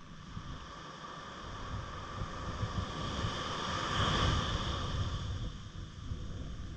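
A motor passing by, its pitched hum growing louder to a peak about four seconds in and then fading, over wind rumbling on the microphone.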